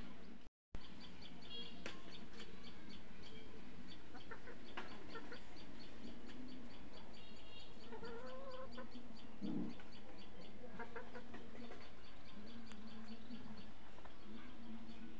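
Chickens clucking, with a short pitched call about eight seconds in.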